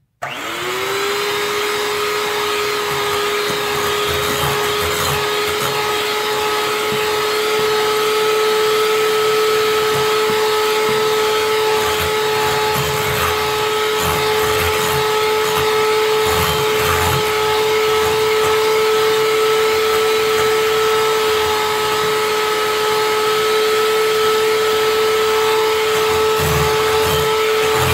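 Electric hand mixer switched on, spinning up within a moment to a steady whine, then running continuously as its beaters mix eggs into creamed cream cheese in a glass bowl.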